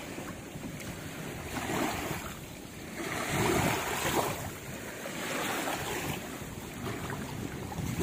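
Small waves washing up a sandy beach, swelling and fading in several surges, with wind buffeting the microphone.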